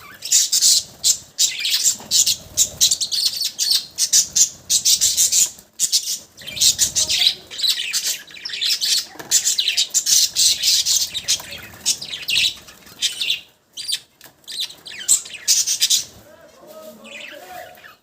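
Pet budgerigars chattering: a dense run of rapid, high chirps and warbles that thins out after about thirteen seconds.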